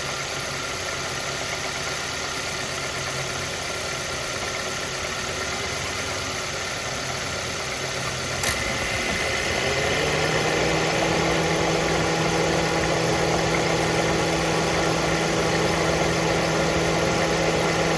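Mazda Verisa engine idling, run to show a knock in it. About eight seconds in there is a click, then an electric cooling fan spins up with a rising whine and runs on as a steady hum over the idle.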